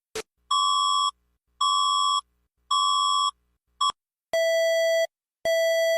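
Electronic alert tone: harsh, buzzy beeps repeating about once a second. Three higher-pitched beeps come first, then from about four seconds in a lower-pitched series of beeps.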